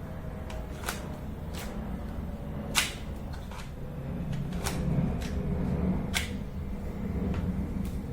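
Paper pistol's mechanism clicking and snapping as it is handled, in a string of irregular sharp clicks, the loudest about three seconds in, over a steady low hum.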